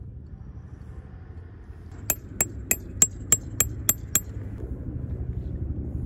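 A peg hammer driving a metal tent peg into the ground: eight ringing metal-on-metal strikes, about three a second, starting about two seconds in.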